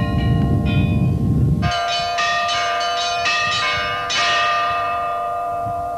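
Church bells ringing, struck in a quick run several times a second, with each stroke's long ringing overlapping the next. A low rumble under the bells stops suddenly under two seconds in.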